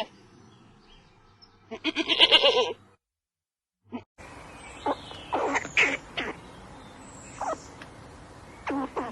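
A single wavering bleat about two seconds in, like the one just before it. Near the middle the recording changes to a steady hiss with several short, sharp animal calls.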